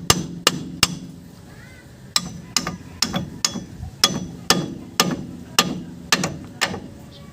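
Hammer striking metal in a steady series, roughly two blows a second, each ringing briefly, with a pause of about a second near the start. This is typical of knocking parts out or in during a rear wheel bearing replacement.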